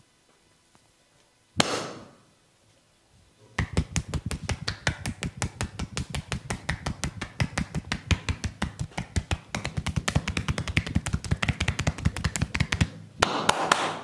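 Percussive massage tapping: a long run of rapid, evenly spaced strikes, about five a second, with a short scratchy rub before it and another near the end.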